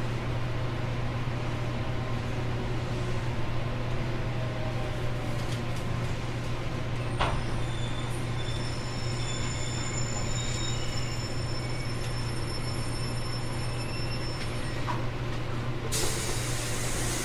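Interior running sound of a JR Kyushu 813 series 200-subseries electric train with Toshiba GTO VVVF control: a steady low hum under rail and wheel noise. In the middle come several high, thin whining tones from the inverter. A second before the end there is a sharp burst of air hiss.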